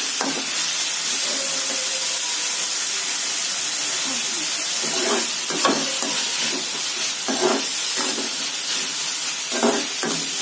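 Mixed vegetables sizzling as they are stir-fried in a metal kadai, with a spatula scraping against the pan several times.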